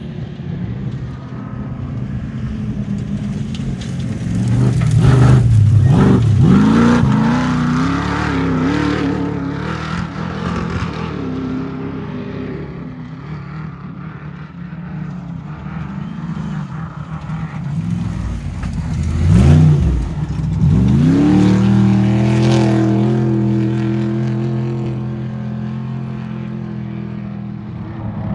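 Two trophy trucks race past one after another with their engines revving hard. Each swells to a loud peak, with a sharp drop and recovery in engine pitch as it goes by, then fades.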